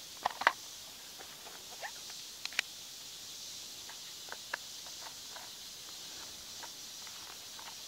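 Sharp light clicks and taps of the chair's lightweight aluminum poles being fitted into the bottom plate, a pair near the start, another pair about two and a half seconds in and smaller ones later, over a steady high hiss.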